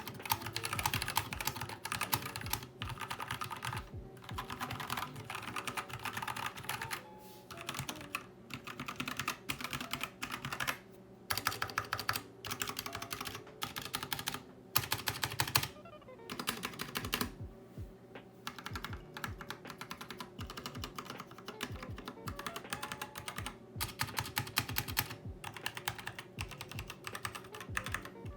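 Typing sound test on a stock HAVIT KB487L TKL mechanical keyboard with red linear switches: rapid runs of keystrokes in bursts, with brief pauses between them.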